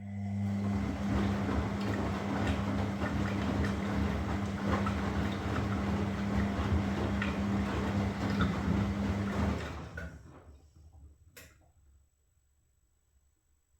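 Washing machine running with a steady electric hum over rushing, splashing water; the hum cuts off about ten seconds in and the water noise dies away, followed by a single click.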